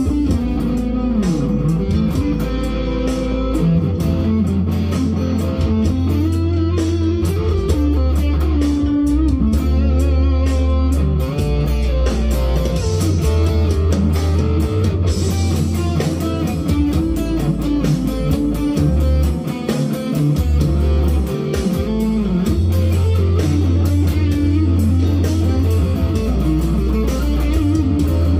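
Leo Jaymz SG-copy solid-body electric guitar played through an amplifier. It plays single-note lead lines with string bends over a loud, deep low end.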